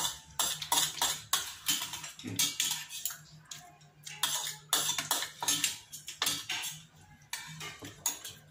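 Metal spoon clinking and scraping against a metal bowl, a run of irregular sharp clicks, over a low steady hum.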